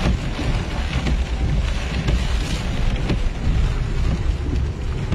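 Heavy rain and gale-force wind, with wind rumbling on the microphone and a steady rush of water.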